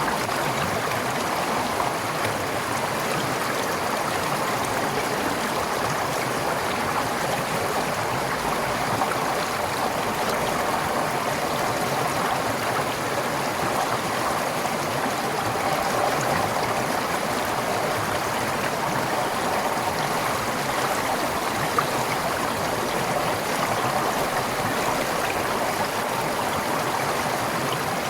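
Forest stream flowing steadily over rocks, an even rushing and burbling of water.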